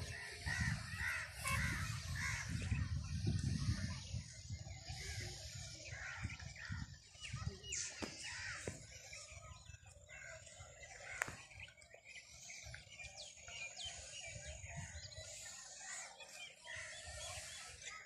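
Many small birds chirping and calling in an open field, with a crow cawing among them. A low rumble of wind on the microphone is loudest for the first few seconds, then eases.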